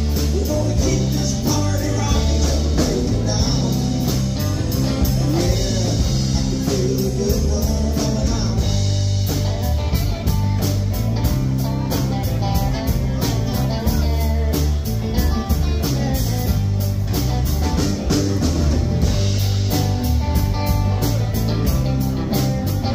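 Live rock band playing: electric guitars over electric bass and a drum kit keeping a steady beat.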